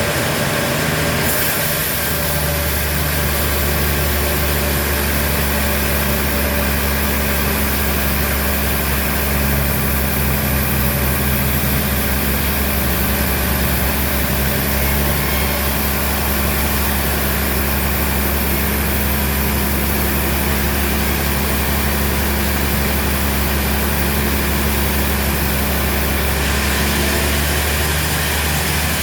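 Heavy machinery running steadily with a low hum and a hiss. Both come in about two seconds in and drop away near the end.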